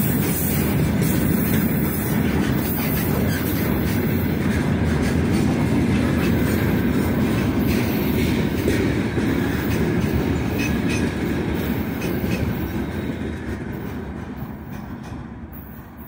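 Freight train of open gondola wagons rolling past close by: a steady loud rumble of steel wheels on the rails with scattered clicks and knocks. It fades away over the last few seconds as the end of the train passes and recedes.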